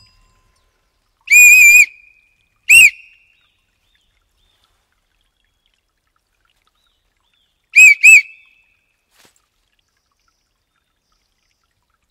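Hand-held whistle blown in four shrill blasts with a wavering pitch: one of about half a second, a short one right after, then two quick blasts together about five seconds later.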